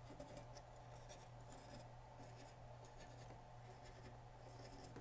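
Faint scratching of a cotton swab rubbing over the contact pads of a multimeter circuit board, cleaning the pads where the push buttons make contact, over a low steady hum.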